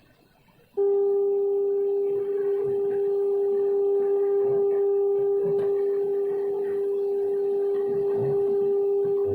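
Radio receiver speaker sounding a steady, unwavering whistle tone: an unmodulated carrier keyed on the channel beating against the received signal, with faint garbled voices underneath. It switches in abruptly about a second in, after a brief silence.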